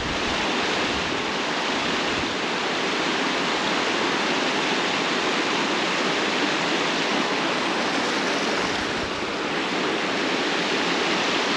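River water rushing steadily over rock ledges and small rapids: an even, unbroken rush.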